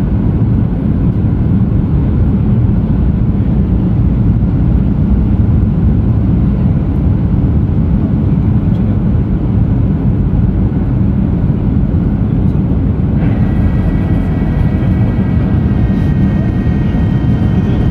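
Jet airliner cabin noise in flight: a loud, steady rush of engine and airflow noise, heavy in the low end. About thirteen seconds in, a steady whining tone joins it and holds.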